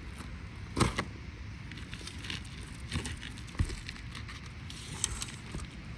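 A few short, sharp clicks and handling sounds, about a second in, around three seconds in and near the end, over a steady low outdoor rumble.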